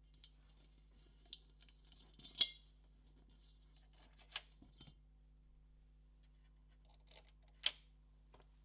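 Scattered sharp clicks and small metallic clinks of screws, tools and parts being handled while a PS4 Pro console is put back together, about four distinct knocks with fainter ticks between them. The loudest, about two and a half seconds in, rings briefly.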